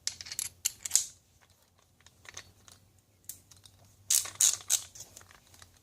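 Sharp clicks from a Milwaukee ratchet screwdriver being handled: a cluster of clicks in the first second, then a quick run of about five ratchet clicks about four seconds in.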